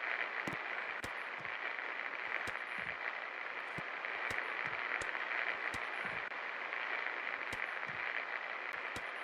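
A 52-inch Superstar Contractor Elite ceiling fan running with a steady airy whoosh, plus scattered light clicks at irregular intervals.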